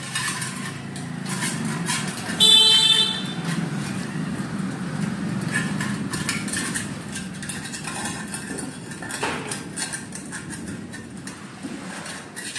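A vehicle horn sounds once, briefly, about two and a half seconds in, over a steady low rumble of traffic. Short clinks and scrapes come from a steel food bowl as a puppy eats from it.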